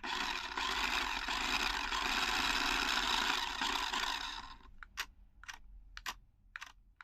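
A Pagani Huayra RC model car switched on: a steady hissing rush of noise starts suddenly and cuts off after about four and a half seconds, followed by a run of sharp clicks.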